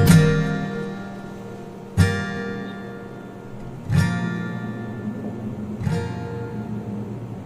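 Background acoustic guitar music: slow chords strummed about every two seconds, each left to ring and fade.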